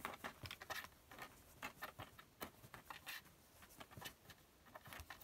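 A kitten's claws scratching and tapping on the cardboard floor of a box as it paws and scrambles: a faint, irregular run of short scratches.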